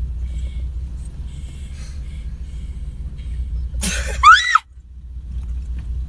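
Car engine running, heard from inside the cabin as a steady low rumble. About four seconds in, a short, loud squeal rises and falls in pitch over it, and the rumble drops out abruptly for a moment right after.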